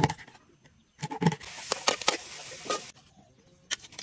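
A kitchen knife chopping skinned snake meat on a wooden chopping board: a sharp chop at the start and a quick run of chops about a second in. Then about a second and a half of steady hiss with crackles that stops abruptly, and a few faint clicks near the end.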